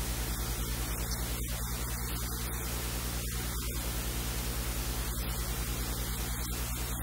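Steady hiss with a low electrical hum underneath: recording noise with mains hum, no other sound standing out.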